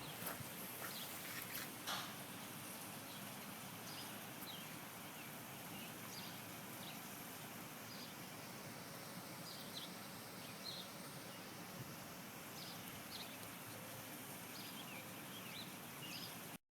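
Quiet outdoor background noise with short, high bird chirps scattered throughout. There are a few sharp clicks in the first two seconds, and the sound cuts off suddenly near the end.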